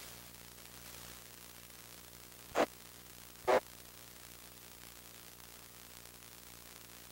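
Amateur radio receiver hiss with a steady low hum on an open, unmodulated channel. About two and a half seconds in, two short bursts of static come roughly a second apart.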